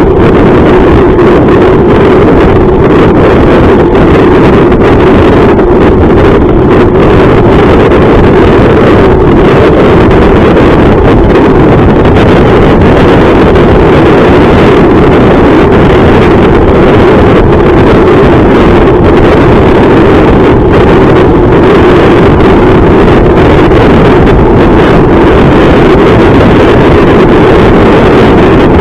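Loud, steady wind roar on a bike-mounted action camera's microphone while riding at speed, mixed with the rush of the road.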